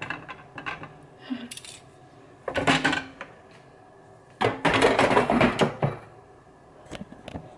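Kitchen handling noises: a few light clicks and knocks, then two louder noisy bursts about two and a half and four and a half seconds in, the second lasting over a second.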